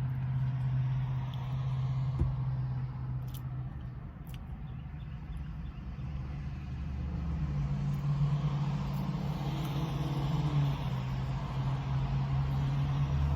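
Steady low engine hum of motor vehicles, with passing traffic growing louder in the second half and a few small clicks.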